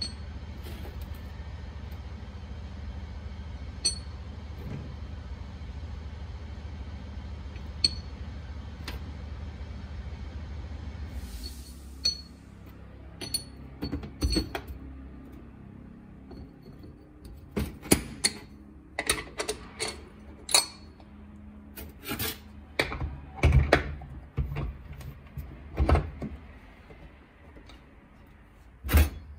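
Metal scooter variator parts being handled and fitted by hand on a steel workbench: roller weights and the variator hub clicking and clinking, then the drive belt being worked onto the pulleys. There are only a few isolated clicks over a steady low hum at first, then frequent sharp knocks and clinks after the first ten seconds or so.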